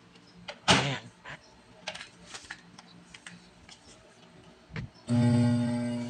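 Microwave oven: a few soft clicks as its door is shut and its controls are set, then about five seconds in it starts heating with a steady electrical hum.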